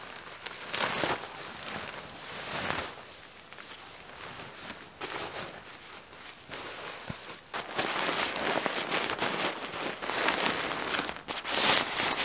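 Waterproof tarp fabric rustling and crinkling as it is gathered, shaken and packed away. The rustling comes in short swells at first and turns denser and louder from a little past halfway.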